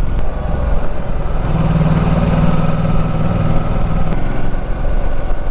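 Motorcycle engine running as the bike rides along, with low wind rumble. The engine note swells from about one and a half seconds in and eases off after about four seconds.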